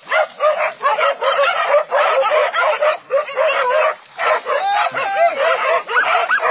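A pack of hunting dogs barking and yelping rapidly as they bay a wild boar, about four barks a second with a brief lull about four seconds in.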